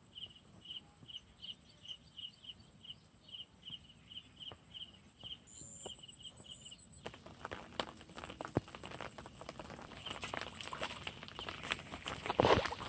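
An insect chirping in a steady high pulse, about two and a half chirps a second, which stops abruptly about seven seconds in. Then comes close rustling and crackling with scattered clicks, building to a loud thump near the end.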